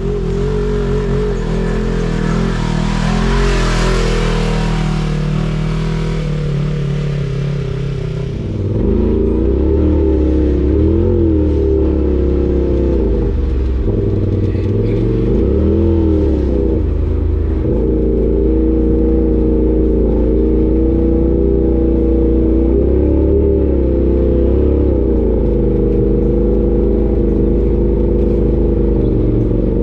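Side-by-side UTV engines running on a dirt trail. In the first few seconds one drives up and passes close by. From about nine seconds in, a UTV engine runs under load, its pitch rising and falling as the throttle is worked.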